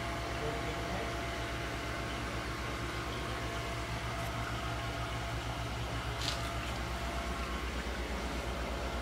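Steady hum and hiss of running aquarium-system equipment, pumps and fans, with a fast low throbbing pulse and a few steady tones. A brief higher hiss sounds about six seconds in.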